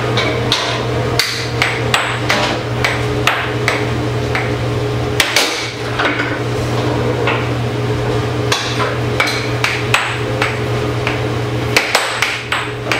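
Air hockey puck cracking against the mallets and the rails of a Tornado air hockey table in quick, irregular strikes, a few a second. Underneath is the steady hum of the table's air blower.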